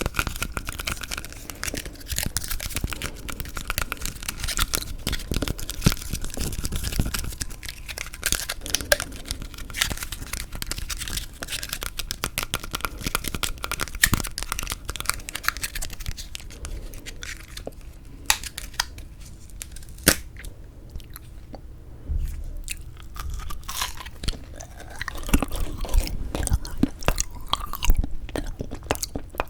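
Close-miked chewing and biting of frozen sweet red bean jelly (yanggaeng): irregular crunchy clicks and crackles with wet chewing.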